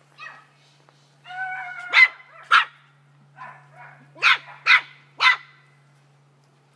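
Small puppy barking in sharp, high yaps: two, then a quick run of three, with a drawn-out whining call just before the first.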